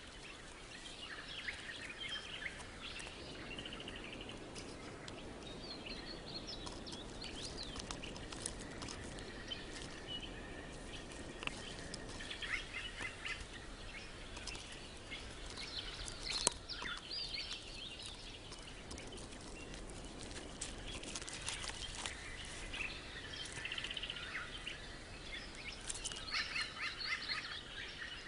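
Birds chirping and calling over a steady outdoor hiss, the calls coming in quick runs throughout, with a thin held whistle for several seconds in the first half and a few sharp clicks, the loudest about halfway through.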